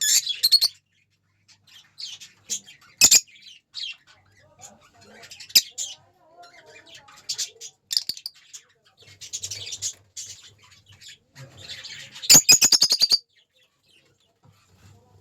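Pet lovebirds chirping in short, scattered high-pitched calls, with a loud rapid run of chirps about twelve seconds in.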